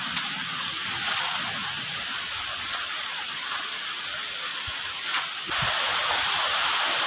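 Waterfall running, a steady dense rush of falling water that gets louder about five and a half seconds in.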